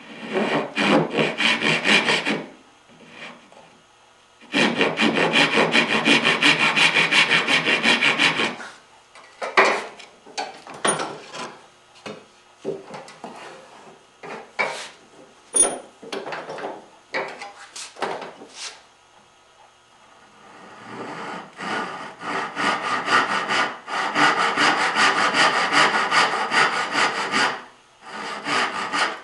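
Backsaw cutting through curly maple in runs of quick, even strokes: about two seconds at the start, about four seconds from around four and a half seconds in, and a longer run from about 21 s almost to the end. Between the sawing runs come scattered light knocks and scrapes of tools on wood.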